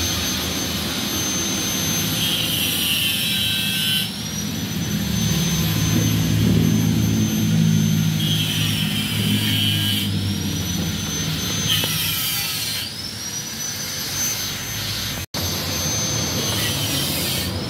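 A high-pitched power tool whining steadily, its pitch sagging and recovering about four times as it takes load, with short bursts of harsher grinding noise.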